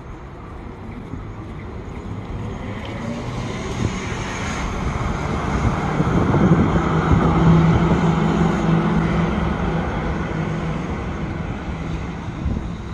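AKSM tram passing close by: a steady hum and running noise build up, are loudest about six to nine seconds in, then die away as it moves off.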